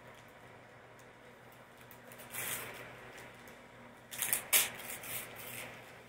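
Gift wrapping paper being torn and crinkled by a small child's hands: a short rip about two seconds in, then a louder spell of tearing and rustling about four seconds in.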